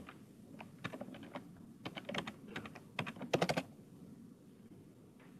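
Typing on a computer keyboard: an irregular run of key clicks for about three and a half seconds, with the loudest quick flurry of keystrokes just before the clicking stops.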